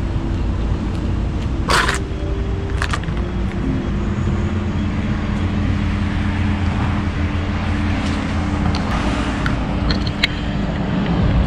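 Steady low rumble of vehicle engines and road traffic, with wind buffeting the action camera's microphone as it swings around. Two sharp clicks come about two and three seconds in.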